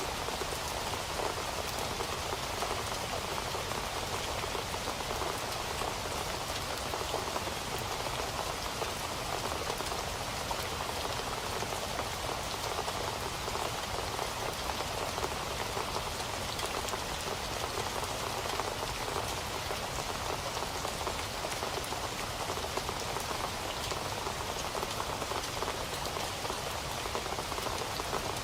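Steady rain falling, a continuous dense patter of individual drops that does not let up.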